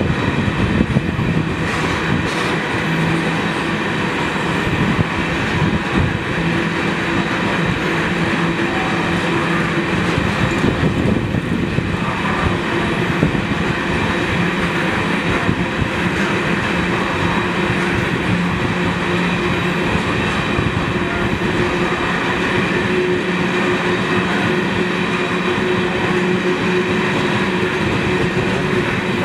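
Iron ore train's hopper wagons rolling past on steel rails: a steady, dense rumble and rattle of wheels on track, with a few faint held tones ringing through it.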